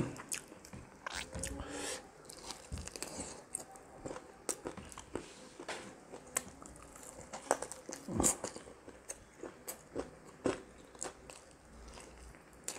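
A person tearing apart and biting into fried chicken, chewing close to a clip-on microphone, with irregular sharp clicks and crunches.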